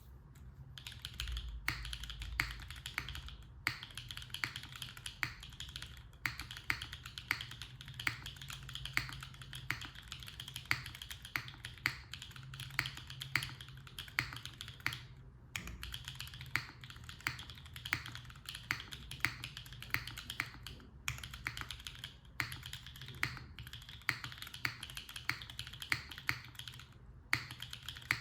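Typing on a Replihaku mechanical keyboard with an aluminium plate, Chilkey Dopamine Blue switches, GMK keycaps and no foam: a fast, continuous run of key clicks with a few short pauses.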